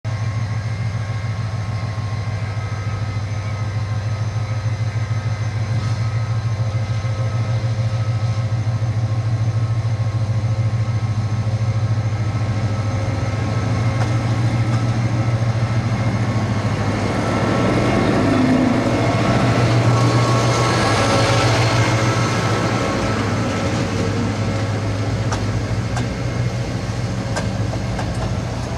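Diesel locomotive of a metre-gauge passenger train running with a steady low engine drone as it approaches, growing louder as it passes about eighteen to twenty-two seconds in. Passenger coaches then roll by with a few wheel clicks over the rail joints.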